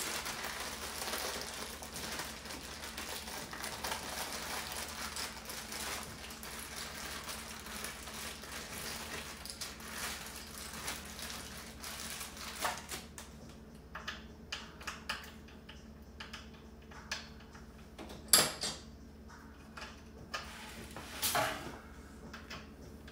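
Crinkly rustling of packaging being handled for the first half. It then gives way to scattered small clicks and clinks of metal cart parts, with two sharper knocks in the second half.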